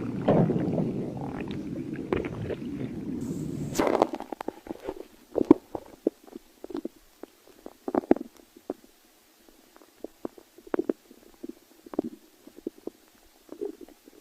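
Stomach growling: a continuous low rumble for about the first four seconds, then it breaks up into scattered short gurgles and pops with quiet gaps between them.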